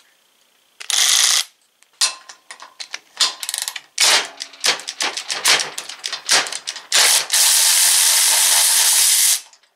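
Avid Power 12V 3/8-inch cordless ratchet wrench running in short, uneven bursts of trigger pulls while tightening a bolt to about 22 foot-pounds, the most torque it can put out. It ends with a steady run of about two seconds near the end.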